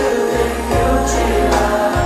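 Slow Vietnamese pop ballad: a male voice singing a held, sustained line over keyboard and a steady bass.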